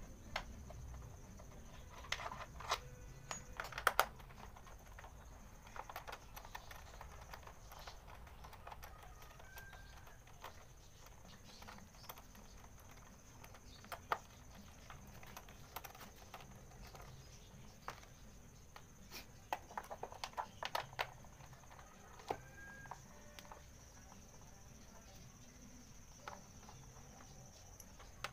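Faint, scattered metallic clicks and taps of an 8mm socket on a T-handle wrench working the bolts of a Yamaha Mio Sporty scooter's crankcase cover, bunched into quick runs of clicks a couple of seconds in and again past the middle.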